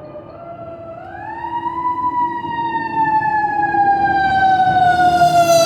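An emergency vehicle's siren wailing, rising in pitch about a second in and then slowly falling, growing louder as it comes closer.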